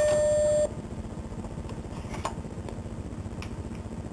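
Apple Macintosh SE alert beep: a single steady electronic tone lasting about two-thirds of a second. After it comes the computer's low steady hum, with a couple of faint clicks.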